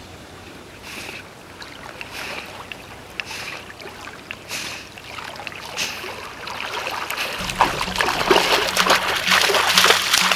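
Footsteps crunching on loose pebbles and stones, about one step a second. From about seven seconds in, background music with a steady low beat comes in, and denser crackling grows louder over it.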